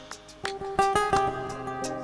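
Music with plucked guitar notes and strums.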